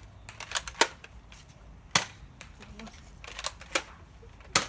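Nerf blaster shooting at plastic toy soldiers: a handful of sharp plastic clacks at uneven intervals, the loudest about two seconds in and another near the end.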